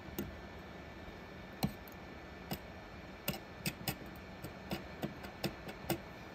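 Razor blade held in pliers scraping off the excess melted LDPE plastic from a patched crosslinked-polyethylene fuel tank: a dozen or so sharp, irregular ticks and clicks starting about a second and a half in, over a faint steady hum.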